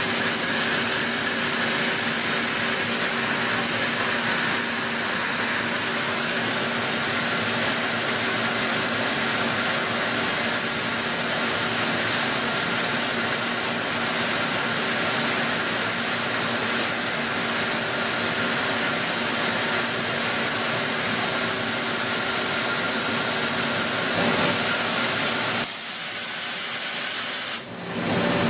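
DMG Mori Seiki multi-axis mill-turn machining center running a cut: a steady hiss of coolant spray with a few faint steady hums from the spindles and drives underneath. The sound drops out briefly near the end.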